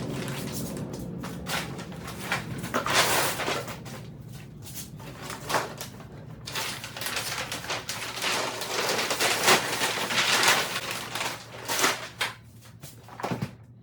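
Irregular rustling and knocking from gear being handled and unpacked, in uneven bursts, some longer and some short.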